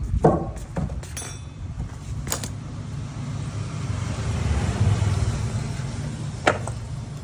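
A low engine-like rumble that swells toward the middle and then eases off, with several sharp clicks and knocks, the loudest just after the start and another near the end.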